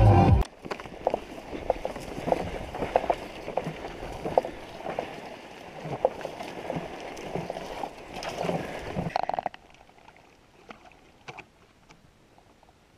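Footsteps pushing through tall dry grass and reeds in a marsh, with stems swishing and snapping underfoot. It fades about nine and a half seconds in.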